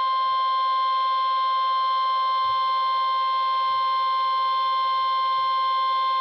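NOAA Weather Radio warning alarm tone: a single steady high-pitched tone near 1 kHz (the 1050 Hz alert tone) held unbroken, heard through a weather radio receiver with a faint hum. It announces the flood watch that is read out next.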